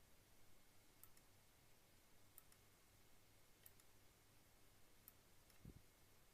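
Near silence with faint computer mouse clicks: four double clicks, one roughly every second and a half, and a soft low thump near the end.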